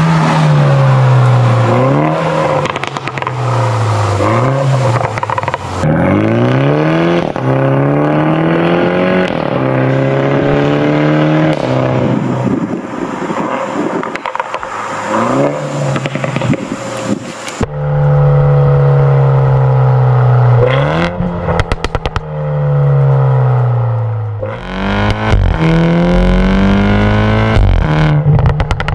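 Toyota Supra 2.0's B48 turbocharged four-cylinder engine through a Fi Exhaust valvetronic catback and downpipe, accelerating hard in repeated runs: the pitch climbs, drops sharply at each upshift and climbs again, with sharp pops between gears.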